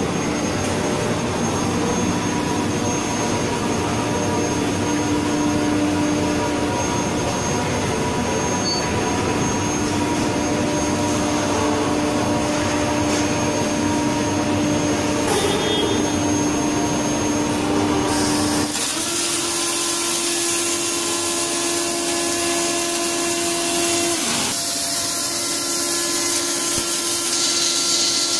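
Steady industrial machinery hum. About two-thirds of the way through, the welding portal's Fronius CMT MIG torches strike their arcs, and a steady high welding hiss and crackle takes over.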